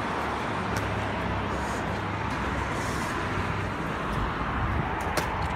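Honda Civic Si's four-cylinder engine idling steadily with its muffler deleted, a raspy low exhaust drone. A couple of faint clicks sound over it.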